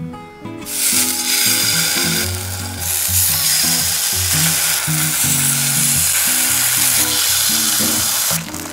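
Food sizzling in a hot non-stick frying pan: a loud, steady hiss that starts about a second in and cuts off suddenly near the end.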